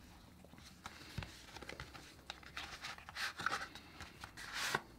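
Cardboard packaging being handled: an inner box sliding out of its card sleeve with soft scraping and rubbing, and a few light taps, the scrapes loudest in the second half.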